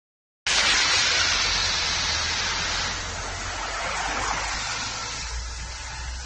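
Road traffic noise: a loud, even rushing of passing vehicles that starts suddenly and slowly eases off.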